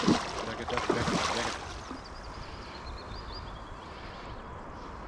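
A large hooked pike thrashing at the surface beside the boat: two loud bursts of splashing in the first second and a half, then only low wind and water noise as the fish goes back down.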